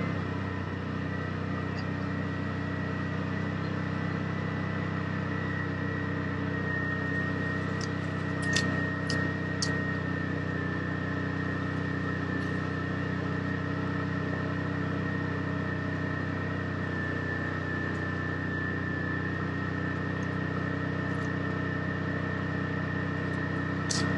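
Side-by-side UTV engine running at a steady, unchanging pitch, with a thin steady whine above it and a few sharp clicks about eight to ten seconds in and again near the end.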